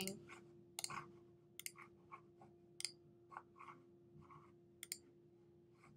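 Near-quiet room with a faint steady hum and about half a dozen soft, scattered computer clicks while menus and cells are worked.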